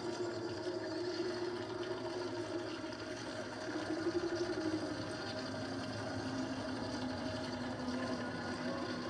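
Film sound design played through a TV's speakers: a steady, machine-like droning with a held tone that drops lower about halfway through, over a dense rattling texture and a low hum.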